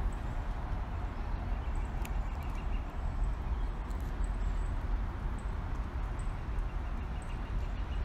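Outdoor ambience: wind buffeting the microphone with a steady low rumble over background noise, and a few faint, short, high bird chirps.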